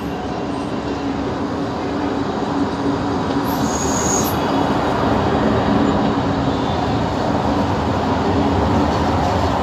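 Abu Qir suburban train pulling into the platform, its engine and wheels rumbling louder as it draws alongside. There is a brief high squeal about four seconds in.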